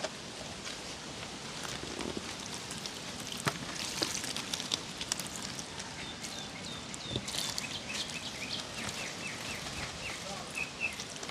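Outdoor ambience with scattered light clicks and crackles, and a bird calling: a few descending chirps midway, then a quick run of short repeated notes near the end.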